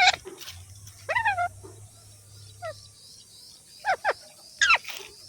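Pet green parrot giving about five short, sharp calls, several of them falling in pitch, in reply to being coaxed to talk.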